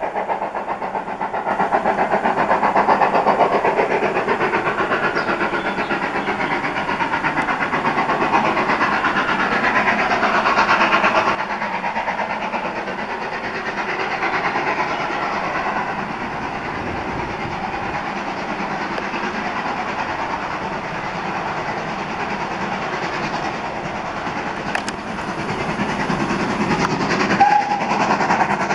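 BR Standard steam locomotive hauling coaches as it approaches, its exhaust chuffing in quick, even beats, louder in the first half.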